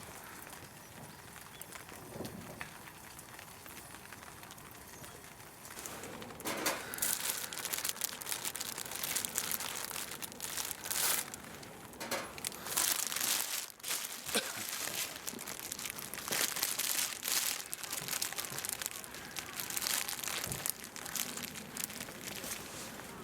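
Crinkling and rustling of material being handled, in irregular bursts that start about six seconds in after a quieter stretch.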